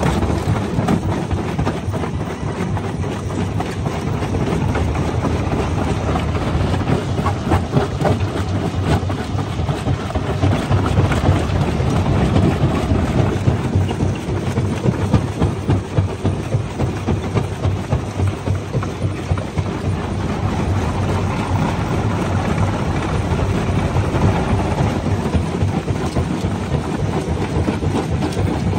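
Jaw crusher running under load, breaking large red rocks: a dense, unbroken crackle of cracking and grinding stone over a low machine rumble.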